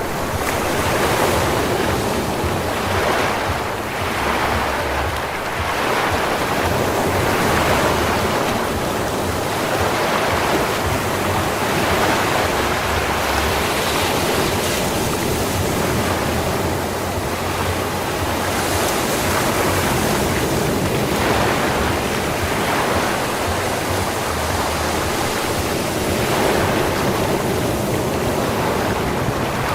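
Ocean waves breaking and washing up a sandy beach, a continuous surf hiss that swells and eases every few seconds.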